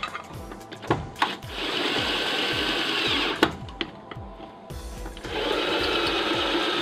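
Cordless drill-driver running twice for about two seconds each time, tightening the wall pack's factory-installed mounting screws; its whine drops in pitch as each run stops. A few sharp clicks come before and between the runs, over background music with a steady beat.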